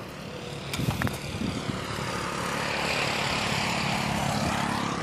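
A road vehicle passing by, its engine hum and tyre noise building up and easing off again. A couple of sharp clicks about a second in.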